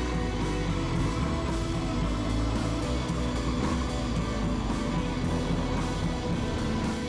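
Rock background music with guitar and a steady beat.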